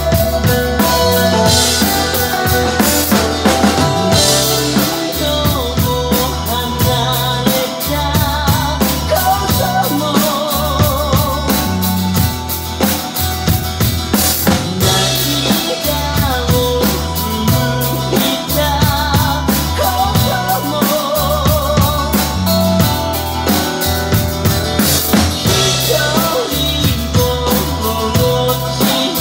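Drum kit played live along to a recorded rock song. Kick, snare and cymbals drive a steady rock beat, with a few louder cymbal crashes.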